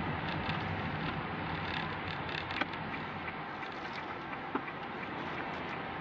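Steady hiss of background noise with scattered faint clicks and ticks, a sharper tick about two and a half seconds in and another near four and a half.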